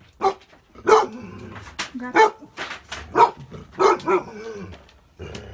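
A dog barking, about six loud barks in the first four seconds.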